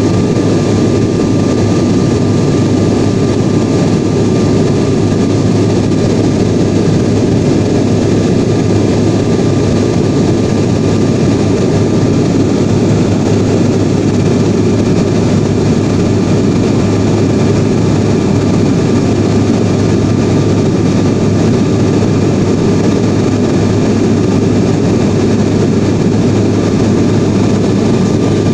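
Steady drone of an airliner's cabin in flight: jet engines and airflow heard from inside the fuselage, with a faint steady whine running through it.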